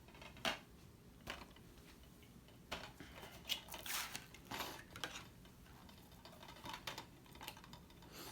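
Hands handling plastic DVD cases and cardboard slipcovers: scattered clicks and taps, with a stretch of rustling and scraping a few seconds in.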